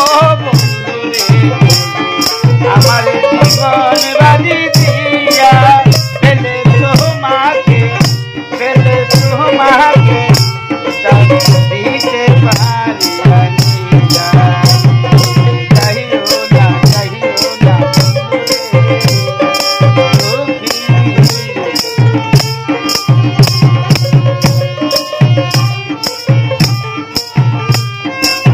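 Bengali baul folk music: a hand drum beats a steady rhythm while a rattle or jingle keeps time on every beat, with a wavering melody line over it.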